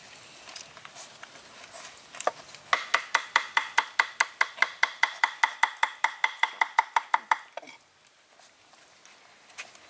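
A knife chopping rapidly on a round wooden chopping board, an even run of about six strokes a second that starts a few seconds in and stops after about five seconds, each stroke ringing briefly.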